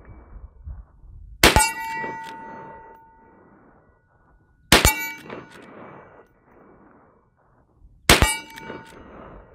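Three rifle shots from a Rossi R92 lever-action carbine in .357 Magnum, fired at an even pace about three seconds apart. Each shot is followed by a ringing metallic clang that dies away over a second or two.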